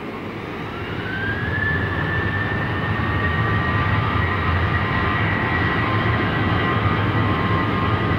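Jet aircraft engines spooling up: a high whine rises in pitch over the first two seconds and then holds steady over a low rumble, growing louder as it rises.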